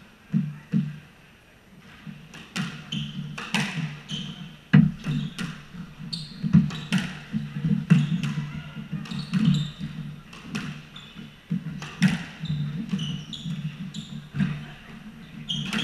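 Squash rally: the ball cracks sharply off racquets and the court walls about once a second, sneakers give short high squeaks on the wooden floor, and footsteps thud as the players run.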